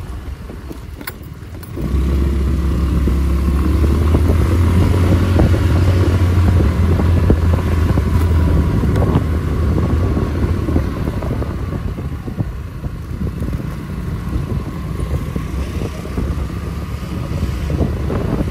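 A motor vehicle engine running: a loud, steady low drone that sets in about two seconds in and eases off after about ten seconds, over wind and road noise.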